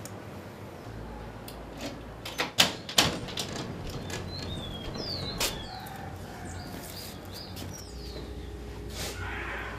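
Keys and the lock of a metal grille security door being worked, giving a few sharp metallic clicks and rattles, the loudest a little over two seconds in, with birds chirping in between.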